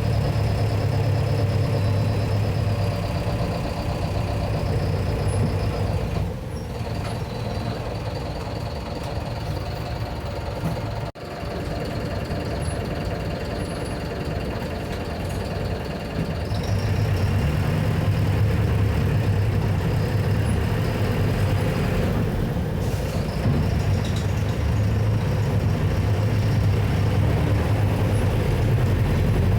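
Four-cylinder diesel engine of a Mercedes-Benz OF-1721 Bluetec 6 bus running steadily, with a thin high whine over the low drone. It eases off about six seconds in, drops out very briefly near eleven seconds, and comes back stronger from about sixteen seconds.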